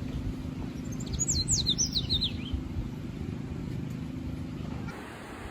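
A Darwin's finch singing a quick run of high whistled notes, each sliding downward, lasting about a second and a half, about a second in. The song is heard over a low, steady hum.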